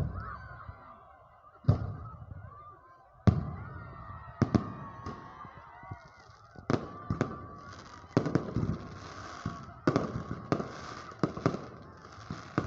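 Aerial fireworks bursting in a run of sharp booms, each trailing off in echo, at first about every second and a half and then faster. From about halfway, crackling fills the gaps between bursts.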